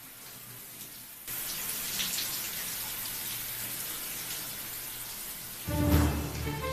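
Shower running, water spraying down onto a person; the spray grows louder about a second in. Music comes in near the end.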